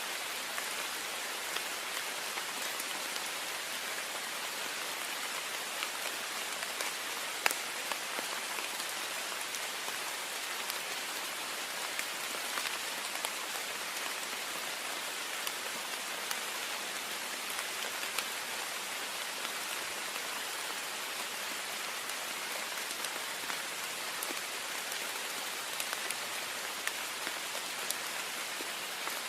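Heavy rain falling on a window: a steady hiss with many scattered sharp drop ticks, one louder tick about seven seconds in.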